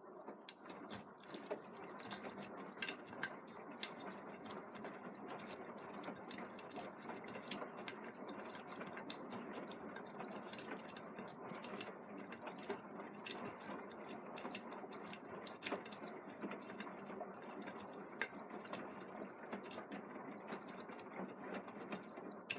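Beko WM74165W washing machine running a wash, a steady rushing noise full of small ticks and clicks that starts suddenly and dies away near the end.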